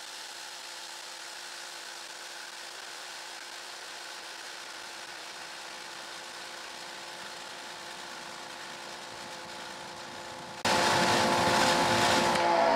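Bauer 2300 psi brushless electric pressure washer running steadily with its trigger held open, spraying through a wide 3.5 mm low-pressure nozzle into a plastic bucket for a flow test. About ten seconds in, the sound jumps much louder into a rushing water spray over the motor's hum.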